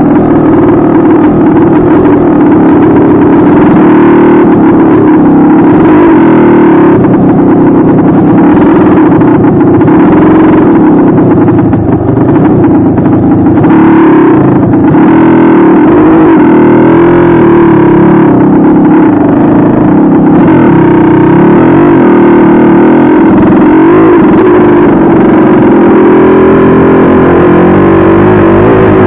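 Dirt bike engine running loud and steady under way, heard from a helmet camera on the rider, its pitch wavering slightly.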